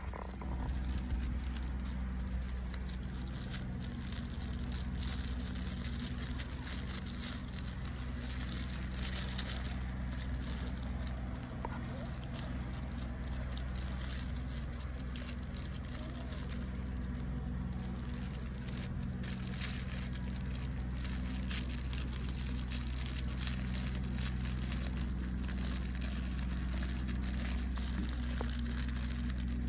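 A steady low hum of a motor running, with light rustling and crunching in dry leaves and grass over it.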